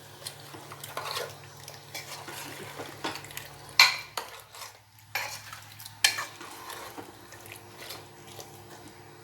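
A spoon stirring vegetables, dal and water in a pressure cooker, scraping and clinking against the metal pot. Two sharper knocks come about four and six seconds in.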